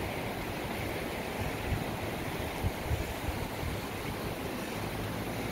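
Steady rush of a shallow, rocky river flowing below, with a few low bumps of wind on the microphone a couple of seconds in.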